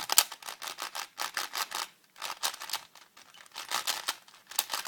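Shengshou 5x5 speedcube being turned by hand, its plastic layers clicking and clacking in rapid bursts with a short lull about two seconds in. The cube is freshly unboxed and over-lubed.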